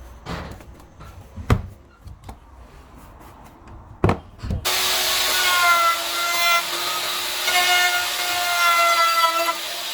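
A few sharp knocks of wood being handled, then about halfway in a power tool starts cutting wood. It makes a loud hiss with a whine that wavers and dips in pitch.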